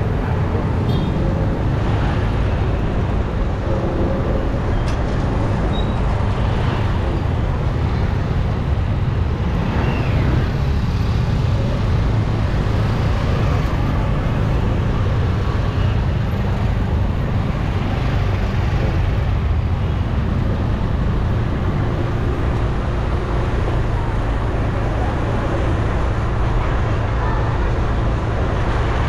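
Steady street traffic: motor vehicle engines running as a continuous low rumble.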